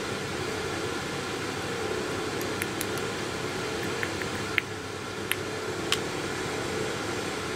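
Steady background hum and hiss, with a few light clicks between about halfway and six seconds in as metal crocodile clips and a probe are handled at a car battery terminal.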